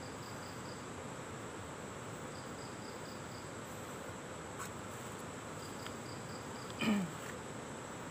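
Insects, crickets among them, buzzing steadily in the surrounding vegetation, with three short runs of quick high chirps. About seven seconds in, a brief voice-like sound drops steeply in pitch.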